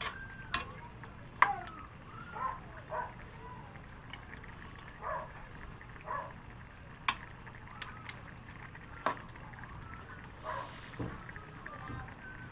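Sweet chicken adobo simmering and bubbling in its thickening soft-drink sauce in a wok, with sharp clicks and pops every second or two.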